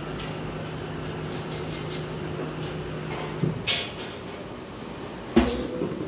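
Bottle-filling machine running with a steady hum while a plastic oil bottle fills, cutting off about halfway through. Then come two knocks of hollow plastic bottles being moved and set down on the steel table.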